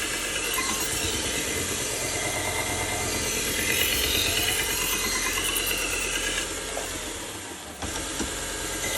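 Belt grinder running with a fine-grit belt, around 600 grit, while a steel butcher-knife blade is drawn across it in repeated sharpening passes. Each pass makes a rising and falling grinding whine. The sound eases off late on, as if the blade is lifted off, then comes back sharply just before the end.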